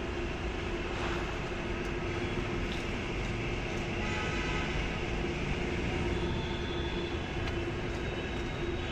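Steady mechanical rumble and hiss with a constant droning hum, unbroken and at an even level.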